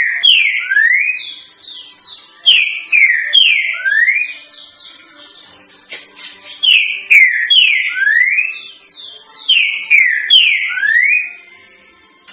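Green-winged saltator (trinca-ferro) singing its 'três notas boi' song: the same loud whistled phrase repeated about every three to four seconds, each a few notes falling in pitch followed by one rising note.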